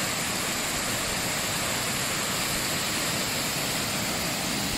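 Roadside waterfall pouring down a bush-covered bank, swollen with storm rain and running far heavier than usual: a steady rush of water.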